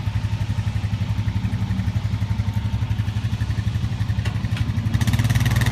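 Honda Rancher 420 ATV's single-cylinder four-stroke engine idling with a steady, even pulse, getting a little louder near the end.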